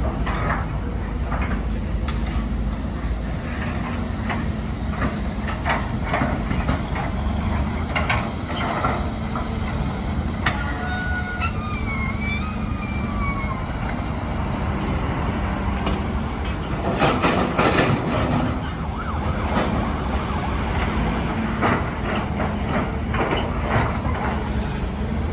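Heavy machinery running with a steady low rumble, with scattered clanks and knocks from the work. A brief falling squeal sounds near the middle, and a louder cluster of knocks comes about two-thirds of the way through.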